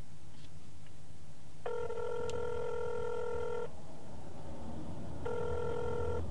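Telephone ringback tone heard through a phone held to the ear: a steady buzzing ring lasting about two seconds, a pause, then a second ring that stops near the end, as the outgoing call rings before it is answered.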